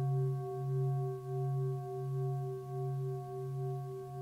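A large metal singing bowl ringing out after a strike, its deep low hum wavering in slow beats under several higher steady tones, slowly fading.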